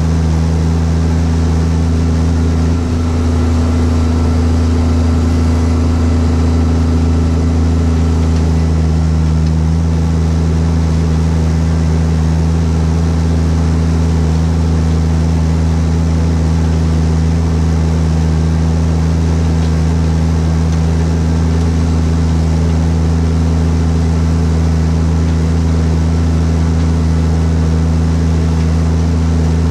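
Fendt 820 Vario tractor's Deutz TCD 2012 six-cylinder diesel engine running at a steady, even speed, a loud, constant low drone.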